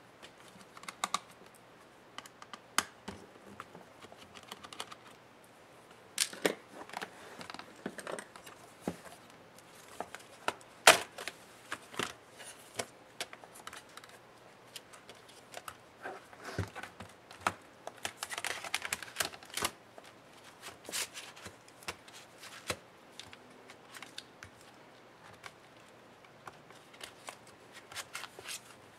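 Hands handling the plastic and metal parts of a Lenovo IdeaPad Flex 14 laptop as it is taken apart: irregular clicks, taps and brief scrapes, with one sharp click about eleven seconds in and a longer scraping stretch past the middle.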